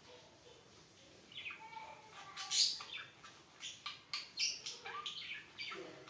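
Budgerigars chirping in short, high calls that start about a second and a half in, the loudest about halfway through.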